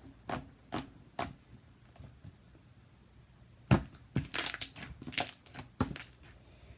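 Homemade glue slime squeezed and pulled by hand, giving short sharp sticky pops and crackles: a few at first, then a quiet spell, then a quicker cluster about halfway through.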